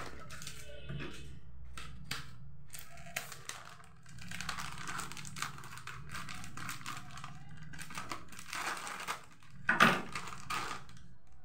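Plastic snack packet crinkling as it is handled and cut open with scissors, many small crackles and clicks over a low steady hum, with a louder crackle near the end.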